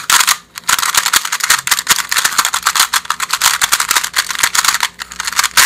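Fangshi XingYu 2x2 speedcube being turned fast in its first turns out of the box: a dense run of plastic clicks and clacks from the layers. The clicking lets up briefly about half a second in and again near the end.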